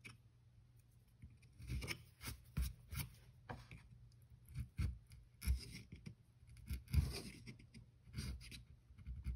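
Small hand carving knife cutting and scraping grooves into a pale wooden board, in short irregular strokes that begin about a second and a half in.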